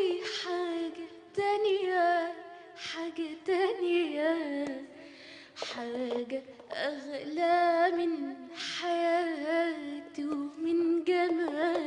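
A young woman singing an Arabic song unaccompanied into a microphone, in long held notes that waver and bend in ornamented runs, with short breaths between phrases.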